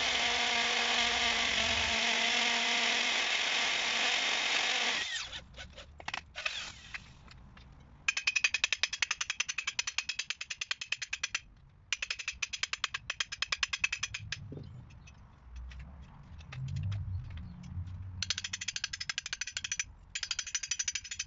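Corded hammer drill boring return holes through insulation board and blockwork: it runs steadily under load, stops about five seconds in, then comes back in several short bursts of rapid, rattling hammering.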